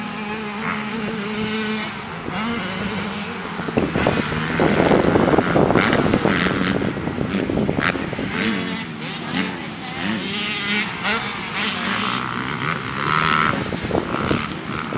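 Motocross dirt bikes racing on the track, engines revving up and down with shifting pitch, loudest about four to six seconds in.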